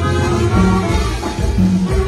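Live norteño band music with two saxophones playing the melody over guitar, bass and drums, a low bass note returning in a steady pattern about once a second.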